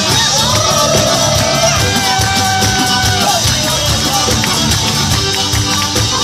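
Southern Italian tarantella folk music: a fast, steady dance beat with a high jingling shimmer under long held melody notes that waver in pitch near the start.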